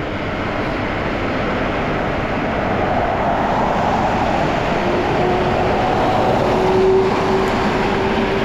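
Road traffic noise heard on a motorcycle ride. About halfway through, a steady engine tone comes in and grows louder.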